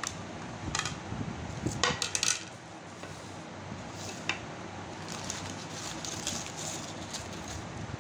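Paper plates and newspaper wrapping being handled: crinkling and rustling paper with a few sharp clicks and taps as plates are set down on newspaper, the loudest cluster about two seconds in.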